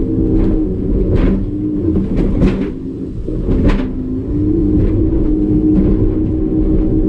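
A 150 hp Evinrude E-Tec two-stroke outboard is running hard, with the hull banging on waves about once a second. The engine note dips briefly about three seconds in and then comes back up.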